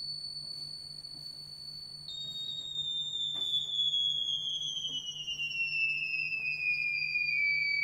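Theremin holding a high, steady tone, then about two seconds in dropping a little and gliding slowly downward in pitch. A faint low hum runs underneath.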